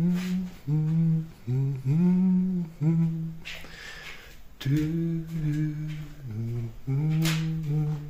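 A man humming a slow tune with closed lips, a string of low, drawn-out notes that change pitch, with a short break around the middle.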